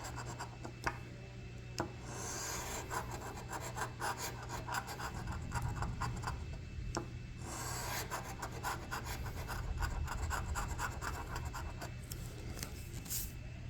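Scratch-off lottery ticket being scratched, its coating scraped away in quick, closely repeated strokes, with short pauses about a second in and about seven seconds in.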